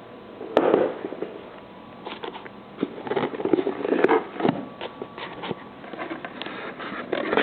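Packaging being handled while someone struggles to open a gift box: irregular crackling, rustling and clicks that come thicker toward the end.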